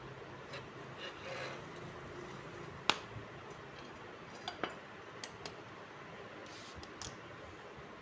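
Sharp metallic clinks and taps as the steel pivot rod of a scooter's centre stand is worked out of the stand and laid down. One loud clink comes about three seconds in, two more just after four and a half seconds, and a few lighter taps follow.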